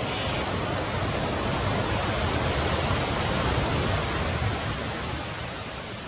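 Steady rushing hiss with no distinct calls, swelling slightly in the middle and fading toward the end.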